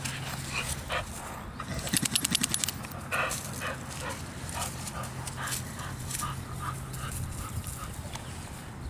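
Pit bull-type dog rolling and rubbing her back on dry grass and dead leaves, rustling, with a quick rapid flurry of rattling about two seconds in as she gets up, then short scuffs as she moves about on the grass.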